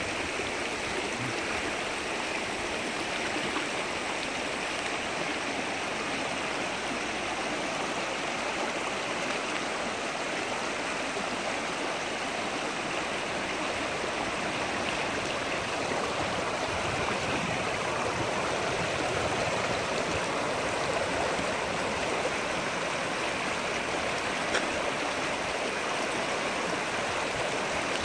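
Shallow rocky river flowing over stones: a steady, unbroken rush of water.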